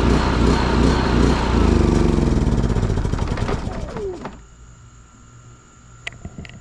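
WEN 4800-watt inverter generator engine running out of fuel: it runs steadily at first, then slows with a falling pitch and dies about four seconds in as the carburetor runs dry. A few faint clicks follow the stall.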